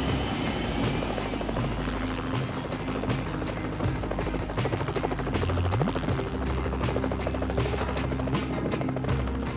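Helicopter in flight, its rotor chopping rapidly and steadily, with a documentary music score playing underneath.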